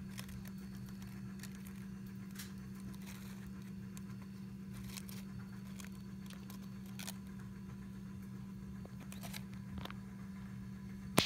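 Faint scattered rustles and small clicks of dry leaves and plastic containers being handled, over a steady low hum, with one sharp click right at the end.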